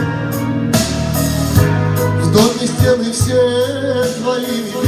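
Closing bars of a song: band accompaniment over a steady low bass, with a wavering melody line entering about two and a half seconds in.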